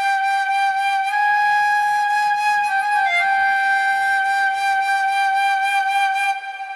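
Music: a flute-like lead holds one long note, with a brief dip in pitch about three seconds in, then drops away briefly just before the end.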